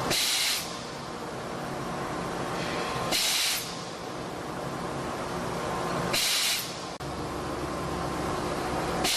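JKP-650 cold forging machine running, a steady mechanical hum broken three times by a short, sharp hiss about every three seconds.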